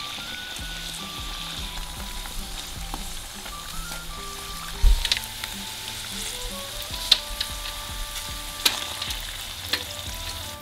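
Strips of pounded purple sticky rice cake deep-frying in hot vegetable oil: a steady sizzle and bubbling, with a few sharp pops of spattering oil in the second half.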